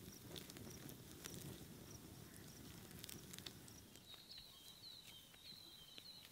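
Near silence: quiet outdoor ambience with a few faint crackles from a small wood campfire, and from about four seconds in a high, rapidly repeated chirping.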